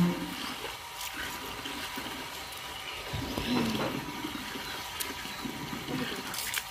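Water from a garden hose pouring into a plastic tub partly full of water: a steady rushing splash.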